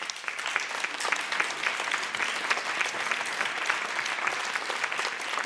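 Audience applauding, a dense, even clapping of many hands.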